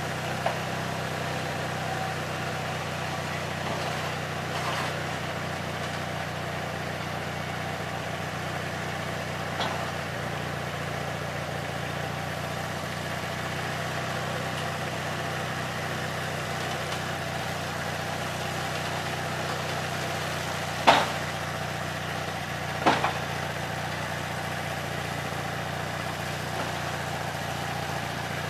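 An engine idling steadily with an even low hum. A few short, sharp knocks come over it, the two loudest about two seconds apart near the end.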